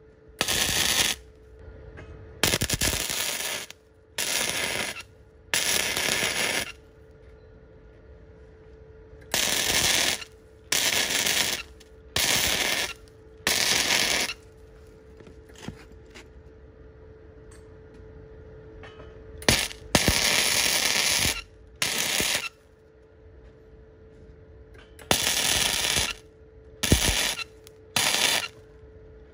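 Repeated short bursts of loud hissing, about a dozen at irregular intervals, each lasting roughly half a second to a second and a half, over a faint steady hum.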